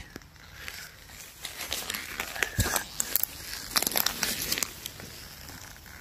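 Dry fallen leaves and twigs on the forest floor rustling and crackling in a run of small, irregular crackles, busiest in the middle.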